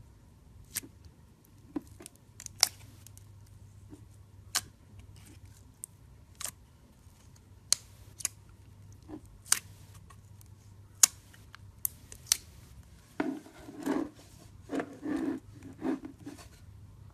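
Clear slime being pressed and played with: a dozen or so sharp pops at irregular intervals, then a run of longer squishing sounds near the end.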